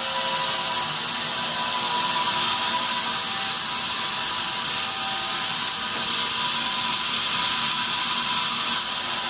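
Sawmill bandsaw running steadily through pine, a constant mechanical hiss with a faint steady whine.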